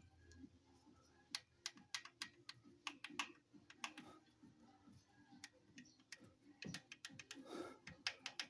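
Faint, irregular clicks and light taps, about one or two a second, from hands handling parts and tools over the engine's opened valve gear.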